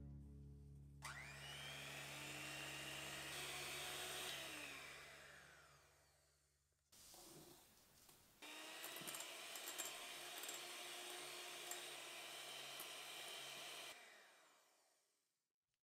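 Electric hand mixer beating egg whites into meringue, in two stretches with a short pause between, each one fading away at the end.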